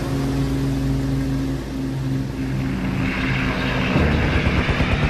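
Propeller aircraft piston engine droning steadily, turning louder and rougher about four seconds in.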